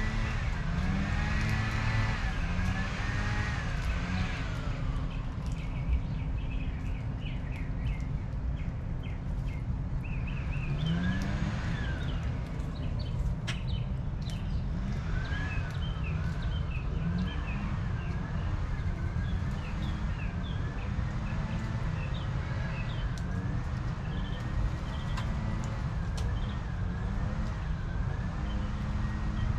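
Outdoor backyard ambience: small birds chirping over a steady low rumble, with a repeating rise-and-fall wailing tone running through most of it.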